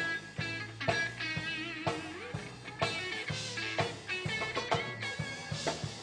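Live gospel band playing an instrumental break: electric guitar solo with wavering, bent notes over bass and drums.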